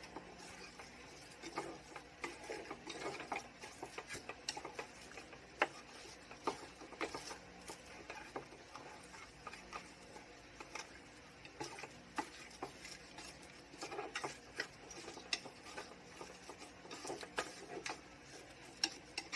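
Pieces of mullet being mixed with their seasoning in a bowl: soft irregular stirring with scattered light clicks and taps.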